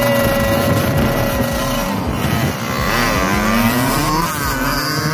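Two two-stroke dirt bikes, a Kawasaki KX80 and a Yamaha YZ85, revving loud and holding high revs at the start. About three seconds in they pull away, the pitch climbing and dropping as they accelerate through the gears.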